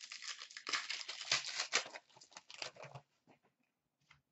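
Foil wrapper of an Upper Deck Artifacts hockey card pack being torn open and crinkled by hand: about three seconds of dense crackling, then a few faint clicks as the cards are handled.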